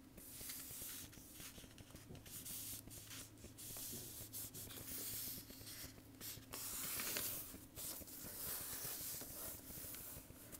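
A sheet of paper being folded and creased by hand: soft rubbing and sliding strokes of fingers pressing along the fold, coming in several uneven stretches.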